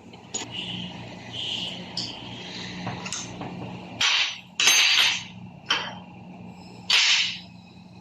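Metal tools knocking and scraping on a Toyota Hilux gearbox casing as its shift rails and detent balls are worked loose: a string of sharp hits and short scrapes, the loudest a few seconds in, over a faint steady hum.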